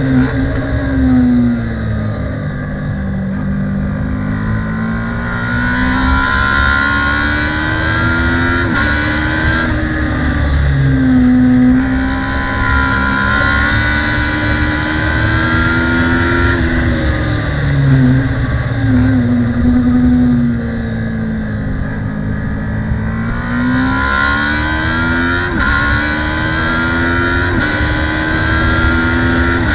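Kawasaki ER-6 650 cc parallel-twin race engine heard onboard at racing speed, repeatedly climbing in pitch as it accelerates, with quick upshifts that drop the pitch suddenly. The pitch falls away twice for a few seconds as the bike slows for corners.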